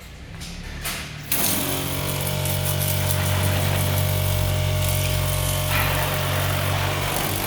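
A small eBay-kit 12 V electric water pump switches on about a second and a half in and runs with a steady hum, with a hiss alongside that changes about six seconds in.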